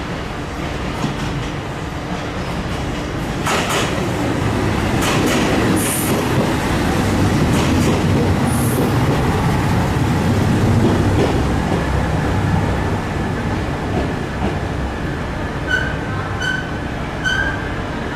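JR Shikoku 2700-series diesel train moving through the station: a low engine rumble that grows louder for several seconds, with sharp rail-joint clicks and a couple of brief high wheel squeals. A few short high tones sound near the end.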